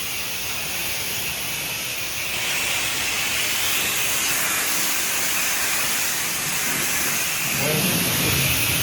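Pressure-washer wand spraying water to rinse debris off a gutter: a steady hiss of spray, louder from about two seconds in.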